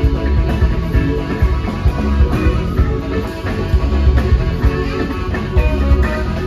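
Live rock band playing an instrumental number with a steady beat: electric guitar, 1962 Hammond organ, bass guitar, drum kit and percussion, with trumpet and saxophone in the lineup.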